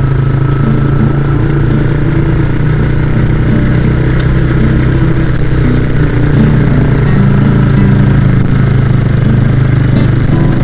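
Motorcycle engine running at a steady, easy cruising speed.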